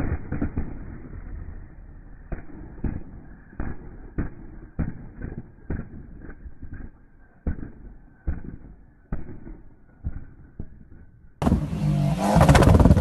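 Subaru Impreza rally car idling with its anti-lag system firing sharp bangs, one every second or so at uneven spacing. About 11 s in, a louder Volkswagen Golf takes over, its engine running with rapid exhaust pops and bangs.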